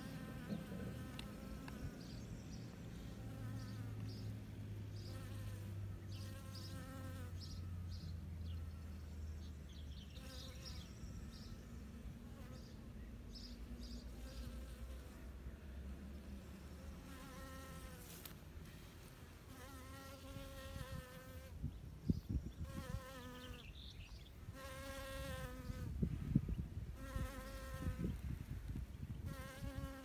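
Honeybees buzzing in flight among flowers: a droning buzz that comes and goes in short passes, more often in the second half. A low hum runs under the first half, and a few low thumps come near the end.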